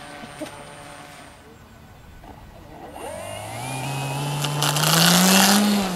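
A radio-controlled model seaplane's engine throttling up, rising in pitch and getting louder over a few seconds, with a hissing rush at its loudest before it falls away near the end.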